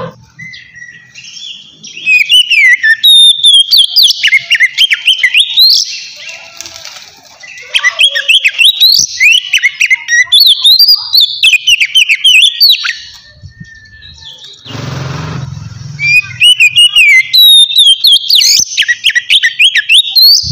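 An oriental magpie-robin singing loud, clear whistled song in three bouts of fast, varied phrases with notes that glide up and down. Between the second and third bouts, about fifteen seconds in, comes a short noisy burst.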